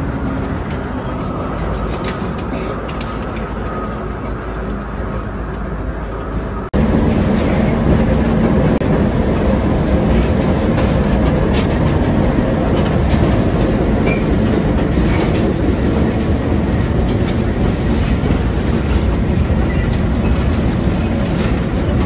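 Open-sided wagon of a narrow-gauge tourist train running along the track, with a steady rumble of wheels on rails and scattered clicks. The diesel locomotive's engine runs close by. About seven seconds in, the sound breaks off abruptly and comes back louder.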